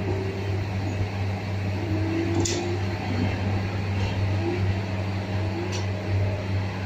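Steady low hum of a moving passenger train heard from inside the carriage, with two brief sharp ticks, one about two and a half seconds in and one near six seconds.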